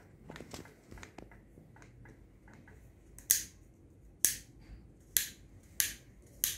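Plastic multi-pattern hose spray nozzle clicking as its pattern dial is turned from setting to setting: five sharp clicks, roughly one a second, in the second half, after a few faint handling ticks.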